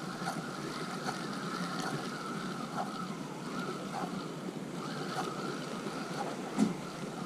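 Wind and sea noise on the microphone of a rod-mounted camera, with a few faint ticks about a second apart. A single sharp knock near the end as a hand grabs the spinning reel and rod.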